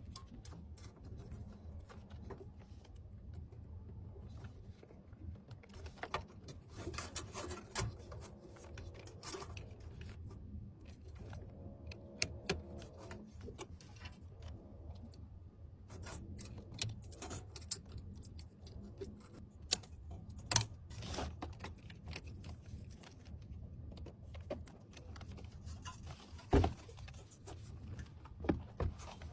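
Scattered clicks, taps and light rustling from computer parts and tools being handled during a PC build, over a steady low hum; a sharper knock comes near the end.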